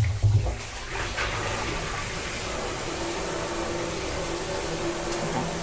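Kitchen faucet spray running onto raw pork in a stainless steel bowl in a steel sink: a steady rush of water as the meat is rinsed.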